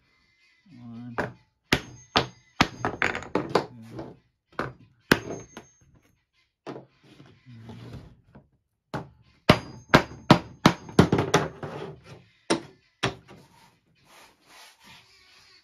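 Claw hammer knocking white plastic blocks loose from a cured epoxy board surface: sharp knocks coming in quick groups of several strikes, with pauses between.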